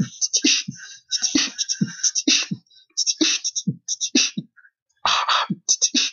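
A rhythmic beatbox-style beat: short low kick-like thumps, about two or three a second, with hissing hi-hat-like hits over them, breaking off briefly a few times.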